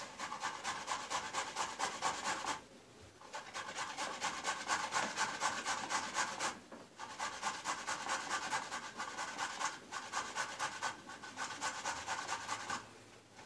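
Boiled beet being grated on a box grater: quick, repeated rasping strokes in four runs of a few seconds each, with short pauses between them.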